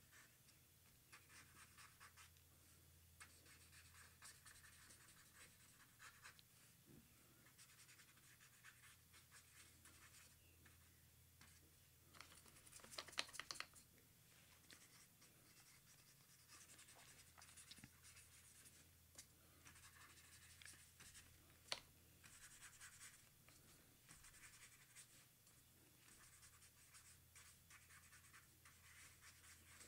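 Faint scratching of a marker pen's tip on paper in short, repeated colouring strokes. About thirteen seconds in comes a louder burst of scratching, and a single sharp click a little after twenty-one seconds.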